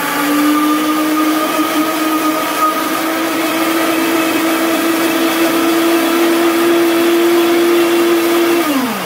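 Countertop blender running, blending soaked cashews and water into a thick cheese-like paste. Its steady motor whine creeps slightly higher, then drops in pitch and winds down near the end as it is switched off.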